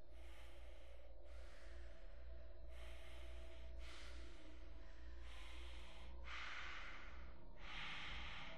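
A space diver breathing hard inside a sealed helmet: seven quick, loud breaths, about one a second, over a steady low rumble.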